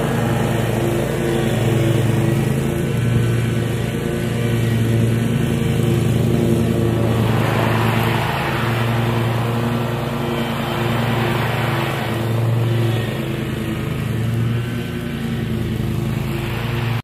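Scag zero-turn riding mower's engine running steadily, a low hum with slight wavering in level.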